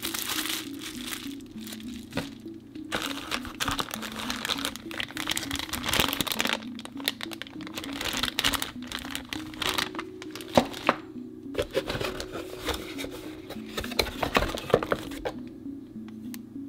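Clear plastic bags and bubble wrap crinkling and rustling as they are handled and unwrapped, with sharp cracks here and there, easing off near the end. Background music with a simple repeating melody plays underneath.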